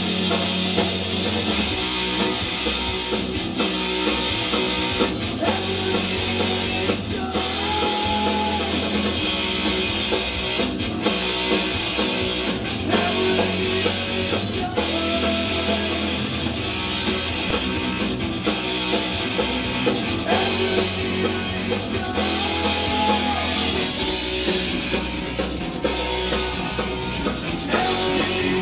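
Rock music with guitar playing from a vinyl record through a 1961 Bogen MX30 tube amplifier with 6L6 output tubes, heard from its loudspeaker.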